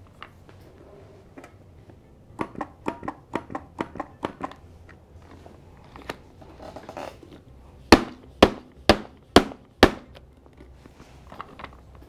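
Hands working an infant CPR training manikin. First comes a quick run of about ten light clicks as two-finger chest thrusts press its chest, then a shuffle as it is turned over. Then five sharp, loud slaps about half a second apart, from heel-of-palm back slaps between the shoulder blades.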